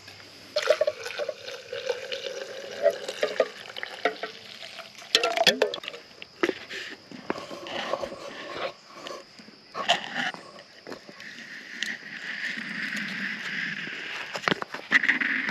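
Hot water poured from a stainless steel pot into a French press to make coffee, with clinks and knocks of the metal pot and the press being handled.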